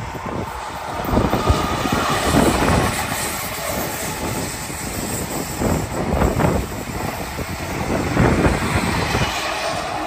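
Spanish high-speed passenger train passing at speed: a loud, sustained rush of wheels on rail and air, swelling several times as it goes by.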